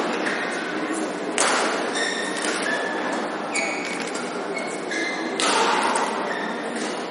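Badminton rally: rackets striking the shuttlecock every couple of seconds, the loudest hits about a second and a half in and again past five seconds, ringing in the hall. Short high squeaks of players' shoes on the court mat come between the hits, over background crowd chatter.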